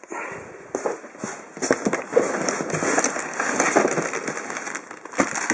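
Plastic packaging crinkling and rustling against cardboard as equipment is handled and lifted out of a cardboard box, a dense run of small crackles.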